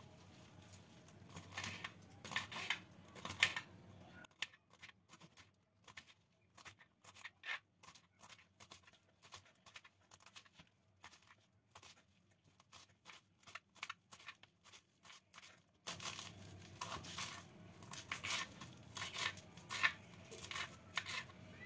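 Knife chopping a bunch of mustard greens on a cutting board: a steady run of quick, crisp cuts through stalks and leaves.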